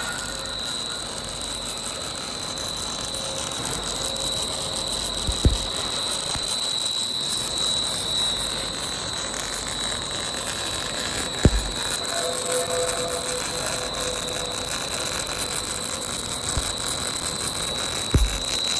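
Auger flight forming machine running with a steady high whine over a hiss. Three short knocks come about six seconds apart.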